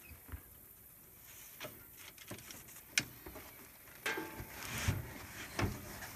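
Scattered small knocks and rustling from hands working loose the rope tied around an alligator's back legs on a boat deck, with one sharp tap about three seconds in and busier rustling from about four seconds on.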